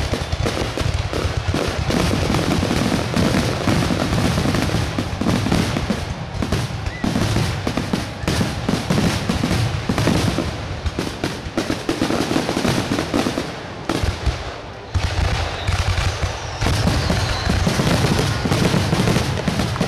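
Aerial fireworks finale: shells bursting in a rapid, overlapping barrage of bangs, with a brief lull about three-quarters of the way through.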